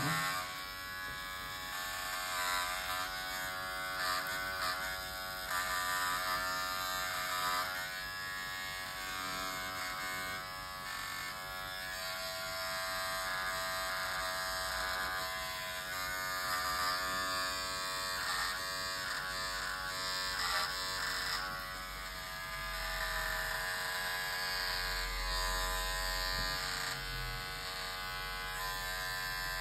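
A small electric motor buzzing steadily, an even drone with many overtones.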